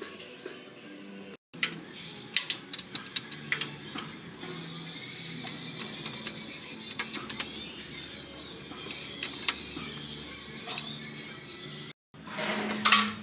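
Irregular sharp metallic clicks and taps of hand tools working on engine parts, in quick clusters.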